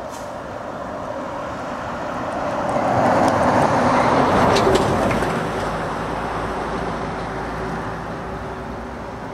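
A small truck driving past on the road: its engine and tyre noise swells over a couple of seconds, is loudest a little before the middle, then slowly fades away.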